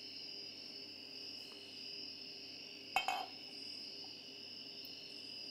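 Crickets chirring steadily and faintly. About three seconds in comes a single sharp glass clink as a wine bottle touches a glass to pour.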